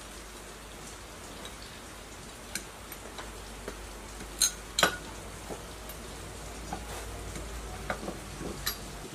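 Light metallic clicks and taps of aluminium small-engine parts being handled and fitted into the crankcase, scattered and irregular, with two louder clinks about halfway through and a few more near the end.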